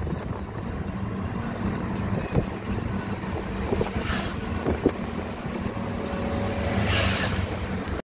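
Cabin noise of a moving Nissan car: steady engine and road rumble with wind through a partly open side window. Two brief louder rushes of noise come about four and seven seconds in.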